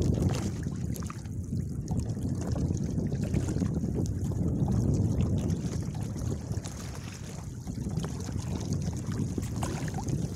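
Wind buffeting the microphone in low, gusting rumbles over choppy sea water, with faint small splashes and ticks.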